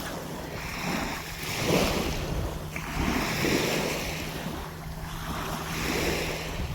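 Waves washing onto a beach, swelling and easing several times, with wind on the microphone and a steady low hum underneath.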